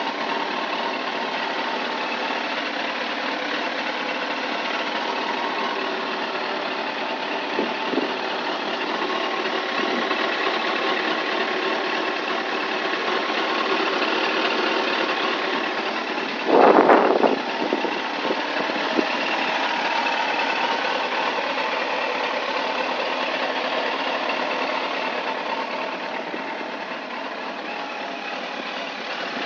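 2001 Suzuki GSX-R1000 K1's inline-four engine idling steadily, with one brief, much louder burst a little over halfway through.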